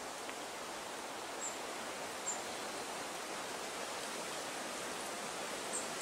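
Long-tailed tit giving three brief, very high, thin calls over a steady outdoor hiss.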